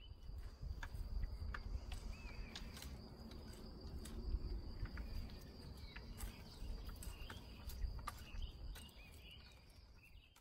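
Outdoor garden ambience: a steady high insect buzz, a few short bird chirps and scattered sharp ticks over a low rumble.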